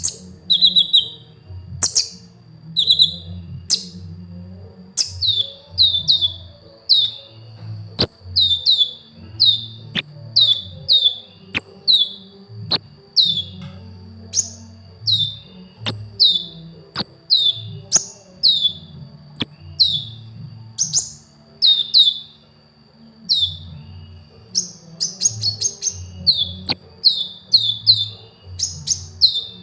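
Kolibri ninja sunbird singing: a string of short, high, downward-sweeping chirps, about one a second, coming faster near the end. Sharp clicks fall between the notes, and a steady high whine runs behind them.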